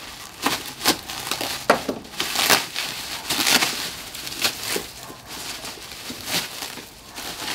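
Plastic bubble wrap crinkling and rustling as it is pulled off and unwrapped from a boxed rifle scope, in irregular crackles.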